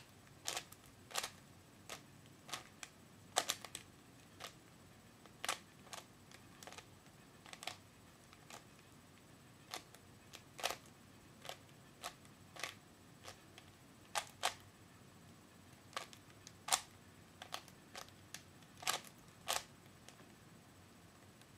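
Store-bought 3x3 Rubik's cube being turned by hand: a string of sharp plastic clacks at an uneven pace, roughly one or two a second.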